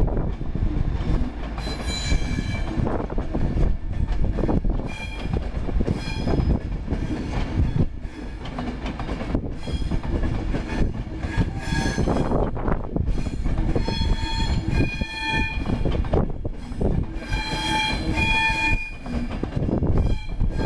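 Virgin Pendolino passenger train rolling slowly past: a steady rumble of wheels on rail with clicks over joints, and high wheel squeals that come and go, strongest in the second half.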